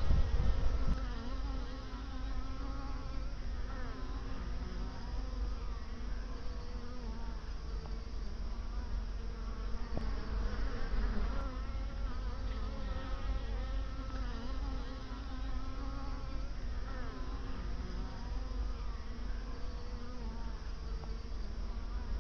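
Several native black honeybees (Apis mellifera mellifera) buzzing in flight, their pitches wavering and overlapping as they come and go. They are bees out on winter cleansing flights.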